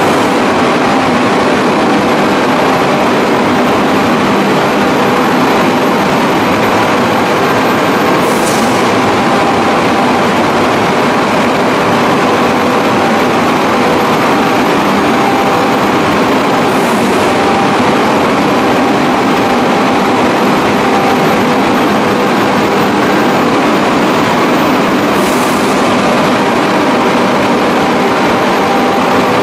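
Spray drying plant running: a loud, steady machine noise with a few steady hums in it. A faint high whine slowly rises in pitch and drops back about every eight and a half seconds, each time with a short hiss.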